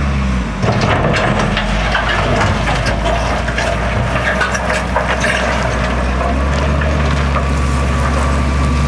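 Wheel loader's diesel engine running steadily under load as its bucket pushes into loose gravel and rock, with crunching and crackling of stones throughout.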